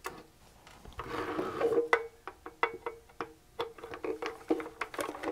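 Screwdriver backing the screws out of a Mackie 402-VLZ3 mixer's metal bottom case: a run of small clicks and ticks of metal on metal, with a thin squeaking tone coming and going under them from about a second in.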